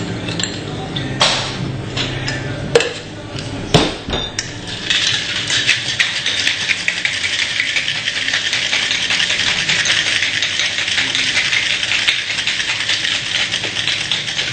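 A few knocks in the first four seconds, then a cocktail shaker shaken hard with only a few ice cubes inside: a fast, even rattle of ice against the tin for about ten seconds.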